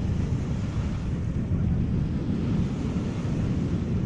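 Wind buffeting the microphone in a steady low rumble, over the wash of the sea.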